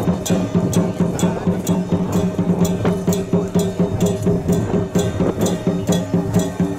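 Music with a steady wood-block beat, about three knocks a second, over held low tones.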